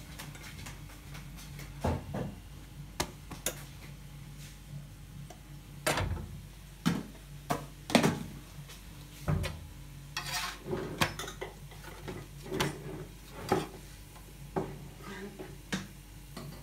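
Metal kitchen utensils clinking and knocking: a flat spatula on an iron tawa and steel pot lids and pans handled on a gas stove. The knocks come irregularly over a steady low hum.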